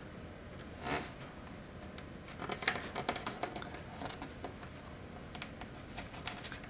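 Small clicks and short rustles of cardboard strips being handled and pressed onto a foam fuselage, with a cluster of quick clicks in the middle.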